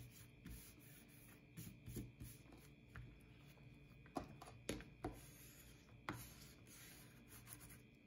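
Faint rubbing and rustling of paper and card as a hand smooths a patterned paper panel down and turns it over, with a few light taps and clicks.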